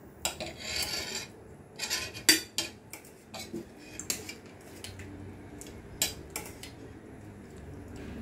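Serving spoons and cutlery clinking and scraping against a wok and plates, in irregular knocks and short scrapes. There is a longer scrape about half a second in.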